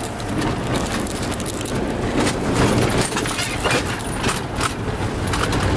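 Engine and road noise inside a moving taxi: a steady low hum with scattered light clicks and rattles.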